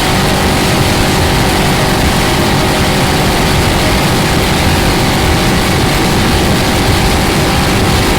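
5.3-litre LM7 V8 driving an Alamarin jet boat drive, running steadily with a steady whine over the engine sound.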